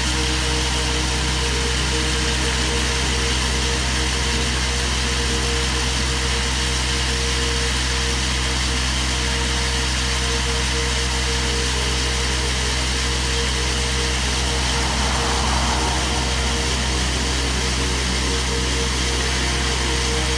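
Diesel engine of a trailer-mounted road coring rig running steadily, driving the hydraulic motor that turns the water-cooled core barrel in the road surface. A constant drone with a hiss over it and no change in pitch.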